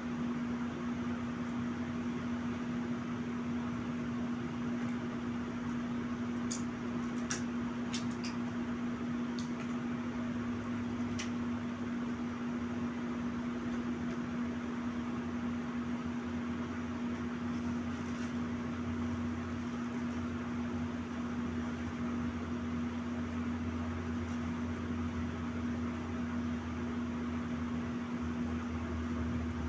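Steady hum of a running appliance, one constant low tone over an even hiss. About a third of the way in come a handful of sharp clicks of wooden chopsticks against the plastic food tray.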